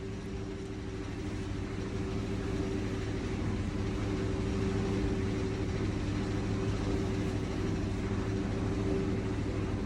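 A steady low machine hum at a constant pitch, growing a little louder over the first few seconds.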